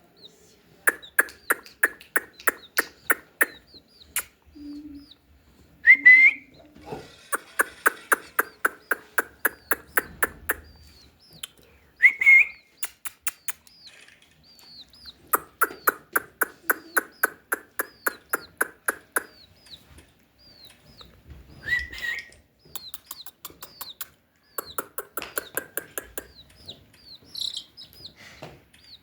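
A bird clucking in long runs of sharp, rapid calls, about four to five a second, each run lasting a few seconds, with a brief rising squawk between some runs. Faint high chirps go on in the background.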